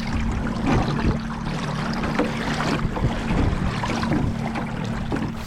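A steady motor hum over wind buffeting the microphone, with water splashing and knocking against a small boat.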